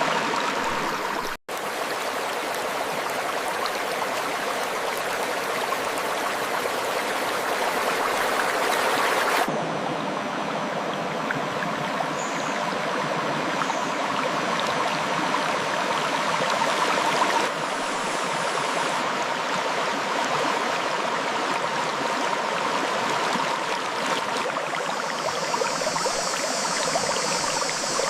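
Clear river water flowing over rocks, a steady rushing and gurgling. It drops out for a split second about a second and a half in, and its tone shifts suddenly twice, about a third and two thirds of the way through.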